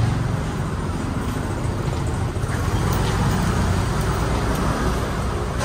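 Steady low engine rumble from motor vehicles close by, with a background hum of activity.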